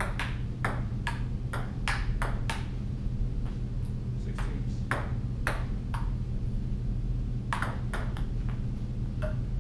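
Table tennis ball clicking back and forth off paddles and the table in three short rallies, about two hits a second, with pauses between points. A steady low hum runs underneath.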